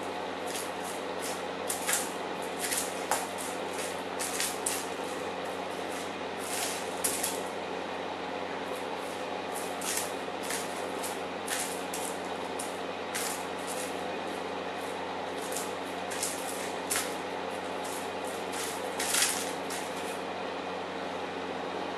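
Persian kitten pawing and scratching at its toys and the wooden floor: irregular short scratchy rustles, dozens of them, over a steady background hum.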